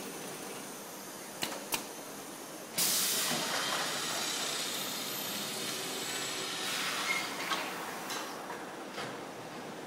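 Factory machinery running, with two sharp clicks, then a sudden loud hiss like escaping compressed air about three seconds in that goes on and slowly fades, broken by a few more clicks.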